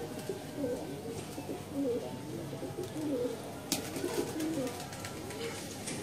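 A flock of red domestic pigeons cooing, many low coos overlapping one another throughout, with a few sharp clicks about two-thirds through.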